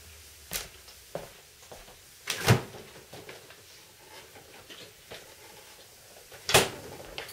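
Kitchen handling sounds: a refrigerator door being opened and shut and a plastic bottle handled. Scattered light clicks, with two loud knocks, one about two and a half seconds in and one about six and a half seconds in.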